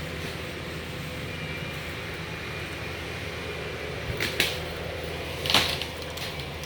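A motor or engine running with a steady low hum, with two sharp knocks about four and five and a half seconds in, the second the louder.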